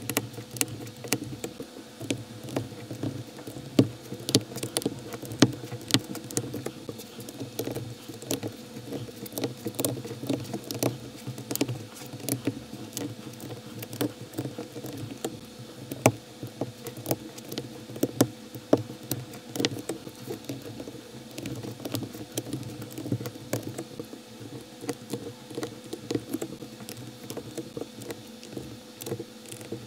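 Plastic LEGO-compatible bricks clicking and tapping as plates and tiles are pressed onto the studs of a baseplate: many small, irregular clicks in quick succession. A steady low hum runs underneath.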